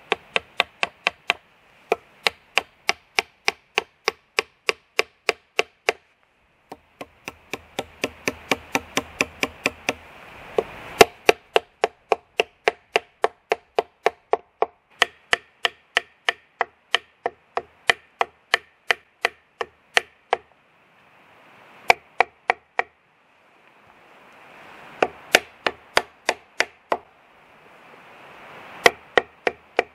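Wooden peg being driven into a green log with a wooden baton: runs of sharp wood-on-wood knocks, about three a second, with several short breaks between runs.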